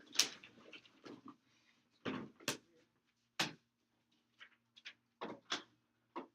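Equipment being moved and set down on a table: a series of sharp knocks and clatters, loudest near the start, about two seconds in, about three and a half seconds in and about five and a half seconds in, over a faint steady hum.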